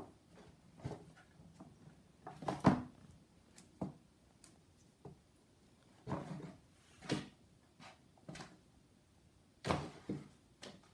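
A kitten batting at and scrambling against an empty cardboard shoebox: irregular hollow knocks, scrapes and scuffles, the loudest about two and a half seconds in, with more around six to seven seconds and again near the end.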